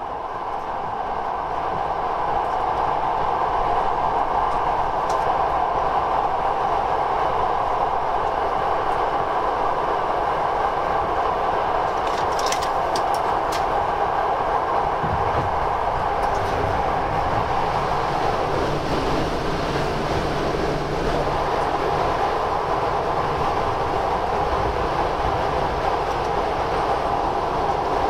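KTR8000-series diesel express train running: a steady rumble and rail noise, with a few sharp wheel clicks about twelve seconds in.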